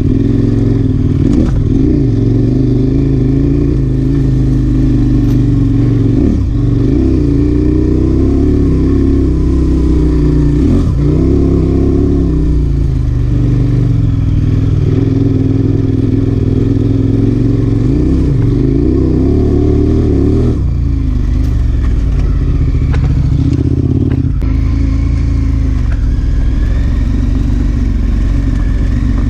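Adventure motorcycle's engine running under way, loud and continuous, its pitch rising and falling as the throttle is opened and closed, with a few brief dips.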